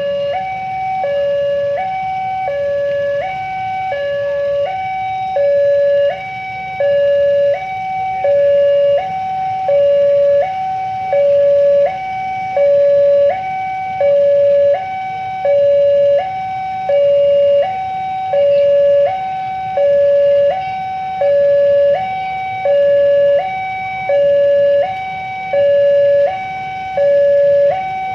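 Railway level-crossing warning alarm sounding its two-tone signal, alternating between a low and a high tone about once a second. It means the barriers are down and a train is approaching.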